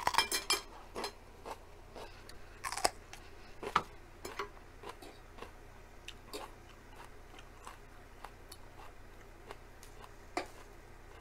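Close-up eating sounds: a bite with a quick cluster of sharp clicks at the start, then chewing with moist mouth clicks that thin out to occasional single clicks. A metal fork clicks lightly against the grill tray once near the end.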